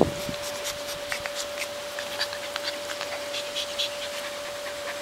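Light scratching and clicking from an Alaskan Malamute puppy being rubbed and mouthing a hand on wooden decking, with a knock at the very start and a faint steady hum underneath.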